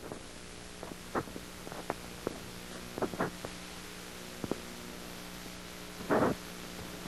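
Steady low hum with background hiss in the narration recording, broken by scattered small clicks and a louder short noise about six seconds in.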